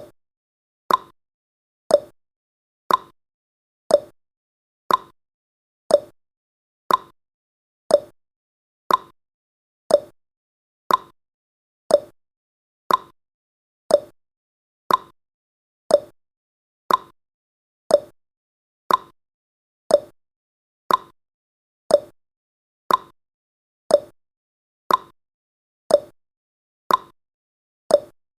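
A countdown timer's ticking sound effect: a sharp clock-like tick once every second, alternating between a higher and a lower tick like a tick-tock.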